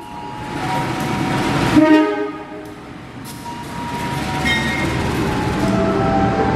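Diesel locomotive horns sounding over the rumble of train engines. The horn is loudest just before two seconds in, dies down, and horn tones sound again from about four and a half seconds in.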